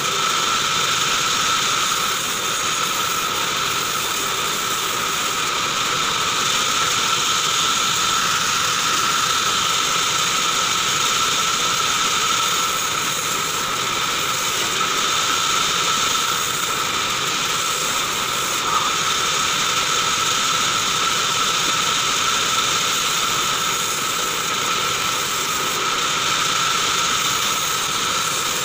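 Large vertical bandsaw running steadily with a constant high whine, its blade cutting through short log sections fed by hand.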